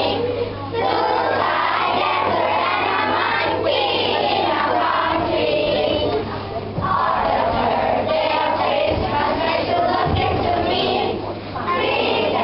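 A group of children singing a Christmas song together over music, with short breaks between lines about half a second in, past the middle, and near the end. A steady low hum runs underneath.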